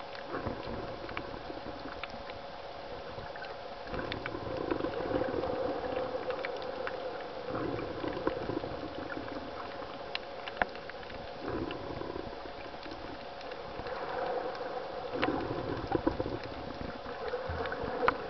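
Underwater water noise of reef surge: a muffled rushing and sloshing that swells and fades several times, with scattered sharp clicks and a steady hum beneath it.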